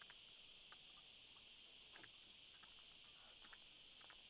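Steady, high-pitched insect chorus, with a few faint short ticks scattered through it.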